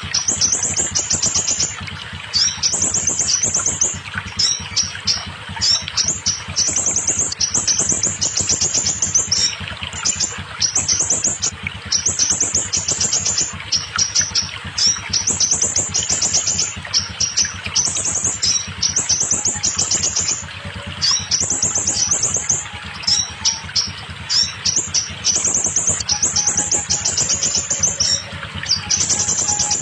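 Scarlet minivet song: high, rapid trilled phrases about a second long, repeated over and over with short breaks between them.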